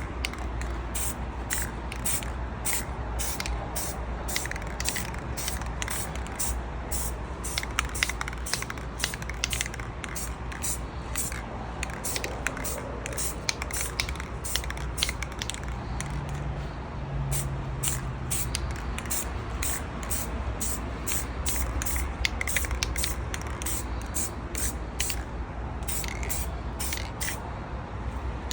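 Leather colour coat being sprayed onto a leather steering wheel in many short hissing bursts, about two a second, over a low steady rumble. It is the final colour coat going on.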